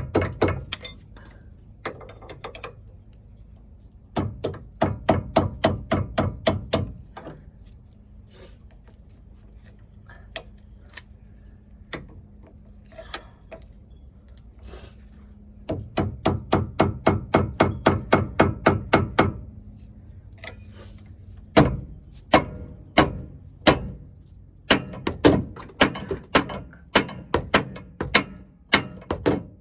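Hammer blows on steering linkage metal, knocking at a tie rod end to break it loose without a pickle fork. There are two runs of quick strikes, about four a second, then slower separate blows through the last third.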